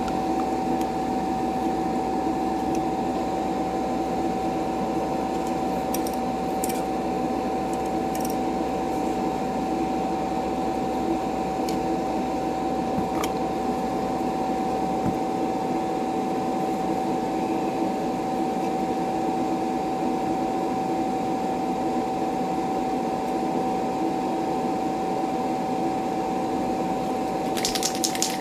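An electric motor running steadily with a constant whine and hum. About a second before the end, a fast, fine rattling hiss starts over it.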